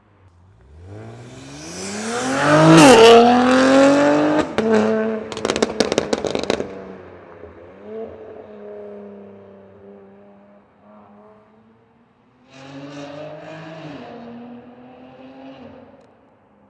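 BMW S58 twin-turbo inline-six breathing through a titanium equal-length X-pipe catback and catless downpipes, accelerating hard. The pitch climbs, a quick upshift comes about three seconds in, and it climbs again. On lift-off a burst of exhaust crackles and pops follows, and the engine settles down. Near the end comes a second, quieter pull that rises and then falls away.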